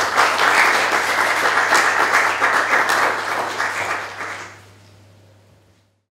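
Audience applauding, fading away about four to five seconds in.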